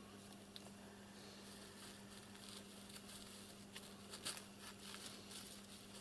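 Faint rustling and light scratching of a kitten's paws moving on newspaper as it paws at a dove, a little louder about four seconds in, over a steady low hum.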